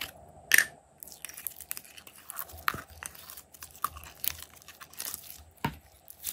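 Clear slime being squeezed out of a thin plastic bottle by hand: irregular crackles and pops from the flexing bottle and the sticky slime, with a sharp snap about half a second in and another near the end.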